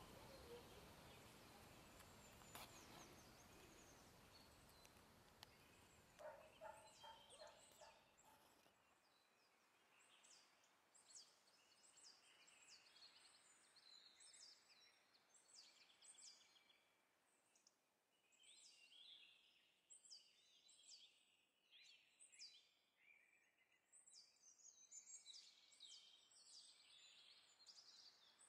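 Near silence with faint birdsong: short high chirps repeating irregularly from about ten seconds in, after a faint steady hiss that stops about nine seconds in.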